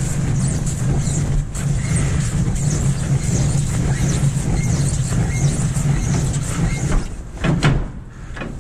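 Heavy truck's diesel engine idling steadily, with a few loud knocks near the end.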